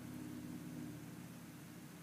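Faint steady low hum with background hiss.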